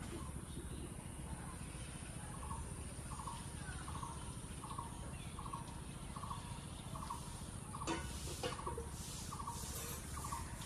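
A bird calling over and over, a short note about every two-thirds of a second, all at the same pitch. Two sharp knocks come near the end, over a steady low outdoor hum.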